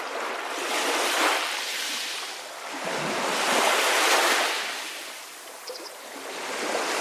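Sea waves washing in slow surges, swelling to a peak about a second in and again, louder, around the middle. A brief high bird chirp comes about two-thirds of the way through.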